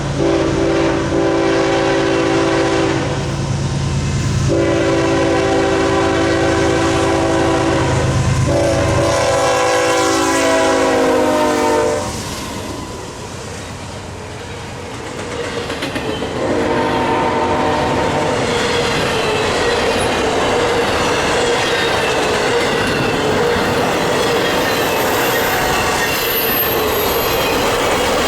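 Diesel locomotive's Nathan K5LA five-chime air horn sounding a horn show: long blasts through the first twelve seconds, one chord stepping higher before cutting off, then a last blast lower in pitch about seventeen seconds in. An intermodal train then rolls past with steady wheel clatter and a ringing wheel squeal.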